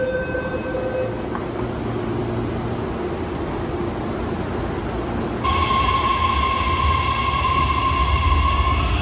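Electric commuter trains at a station platform. A door warning tone ends about a second in; about halfway through a steady high electric whine with a low rumble starts abruptly, the sound of a train's traction motors at standstill.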